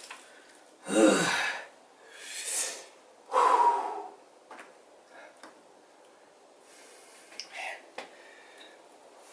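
A man breathing hard: three loud, forceful breaths or gasps in the first four seconds, then only faint breathing and small movements.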